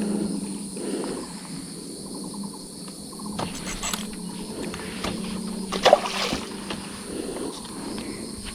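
Crickets chirping steadily under a low steady hum, broken by two short noisy rustles, one about three and a half seconds in and one about six seconds in.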